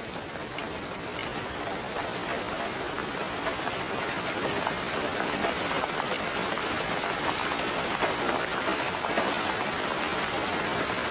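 Steady rain falling: an even hiss with scattered ticks of single drops, growing slightly louder over the first couple of seconds.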